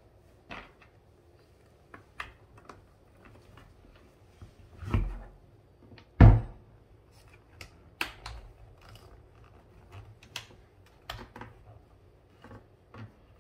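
Irregular light clicks and taps, with two louder thumps about five and six seconds in: a Schutt F7 football helmet and its face-mask hardware being handled and fastened.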